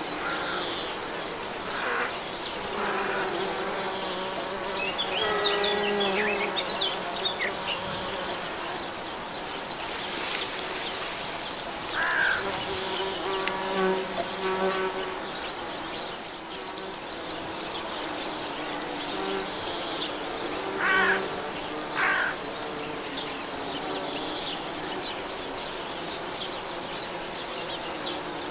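Bumblebees and honeybees buzzing as they forage among phacelia flowers, the hum swelling and fading as they come and go. Birds chirp in the background, with a few louder calls about twelve and twenty-one seconds in.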